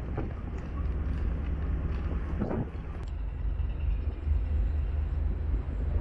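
Wind buffeting the microphone on the open deck of a ferry under way, over a steady low rumble from the ship.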